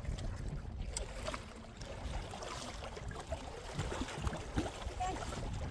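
Steady low rumble of wind and water around a small boat on the water, with a few faint knocks.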